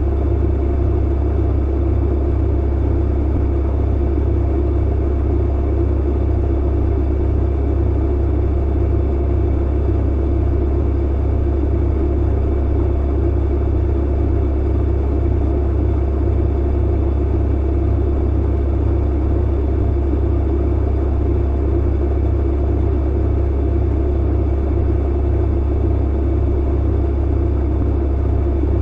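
Clothes dryer running, a steady deep hum and rumble that does not change.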